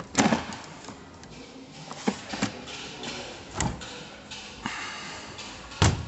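A Bosch washing machine's plastic detergent drawer being slid open and shut, with several knocks and clacks, then a heavier thud near the end.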